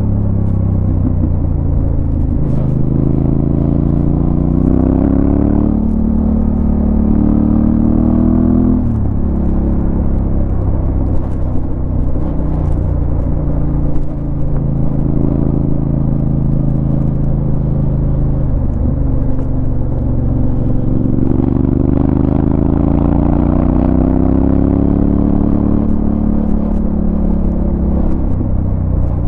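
Yamaha Ténéré 700's parallel-twin engine under way. Its note rises through the gears, steps down at a shift about six seconds in and drops off sharply at about nine seconds. It then holds steady at cruise and climbs again from about twenty seconds in.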